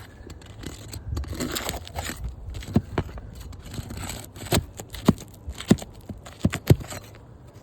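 Asphalt roof shingles being worked loose and pried up: scraping and crackling, then several sharp knocks.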